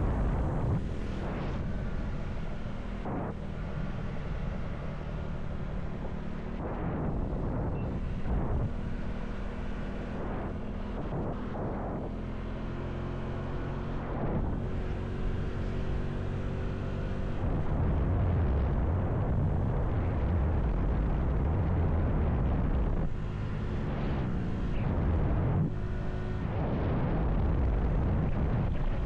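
Motorcycle engine running while being ridden, its pitch rising and falling with throttle and gear changes over a heavy low wind rumble on the microphone.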